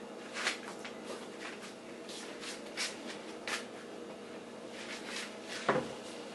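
Soft shuffling and rustling of a person moving about, in short scratchy bits, with one sharper knock a little before the end, over a faint steady hum.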